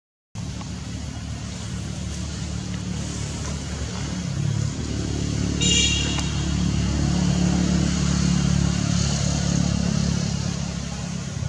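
A motor running with a steady low hum, its pitch shifting as it grows louder about four seconds in. About halfway through comes one brief high-pitched squeal.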